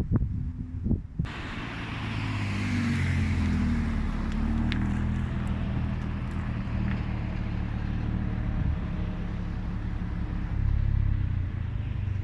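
Mercedes-AMG CLA45's turbocharged four-cylinder engine comes in abruptly about a second in and then runs at a steady, even drone, with a few faint ticks. Wind buffets the microphone just before.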